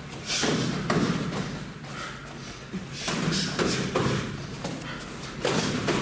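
Thuds of punches and kicks landing in full-contact Kyokushin karate sparring, coming in flurries: one just after the start, another about three seconds in, and a third near the end.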